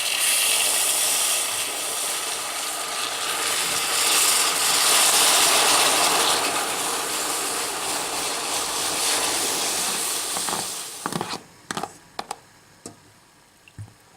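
Beer being poured slowly into a saucepan of hot melted cane sugar, hissing and fizzing loudly as the liquid hits the hot sugar. The hiss dies away about eleven seconds in, followed by a few light knocks.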